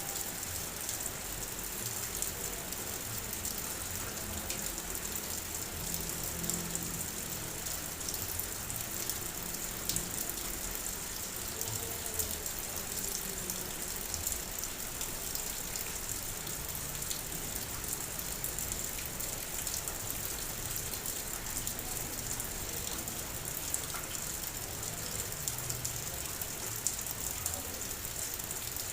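Rain falling steadily, a dense even hiss with scattered sharper drop ticks throughout.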